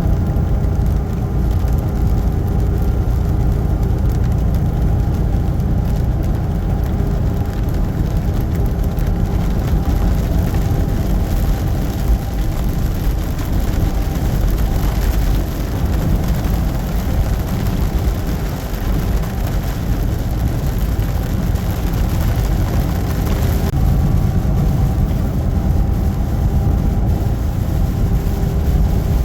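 Steady in-cab drone of a semi truck on the highway: a deep engine and road rumble with a faint steady hum above it.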